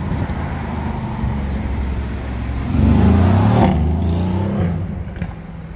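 Road traffic: a motor vehicle's engine running as it passes close by, building to its loudest about three seconds in and then fading.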